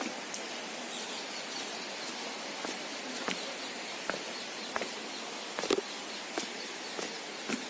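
Footsteps walking at an even pace, about one short step sound every two-thirds of a second, the strongest a little past the middle, over a steady outdoor hiss.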